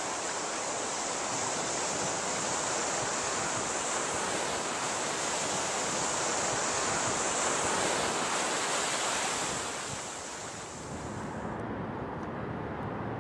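Ocean surf washing up on a sandy beach, a steady rush that swells slightly, then fades about ten seconds in, giving way to a quieter outdoor background with a few faint clicks.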